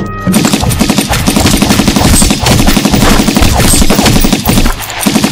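Automatic gunfire: rapid shots in a long continuous burst, breaking off briefly near the end before a short final burst.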